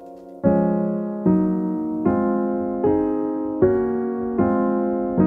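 Background music: keyboard chords struck about once every 0.8 seconds, each ringing on and fading, starting about half a second in.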